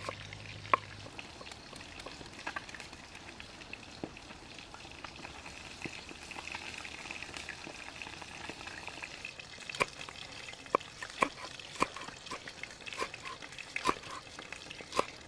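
Cleaver chopping red chilies on a round wooden chopping board: sharp knocks, sparse at first, then about two a second from around ten seconds in, over a steady hiss.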